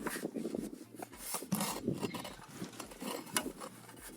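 Metal tools clinking and scraping against the engine's flywheel as it is turned by hand, in irregular clicks and rubs.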